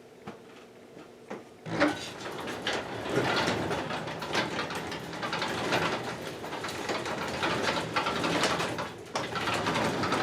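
An old wooden sectional garage door moving along its tracks: a clunk about two seconds in, then a continuous clunky rattle and clatter of its rollers.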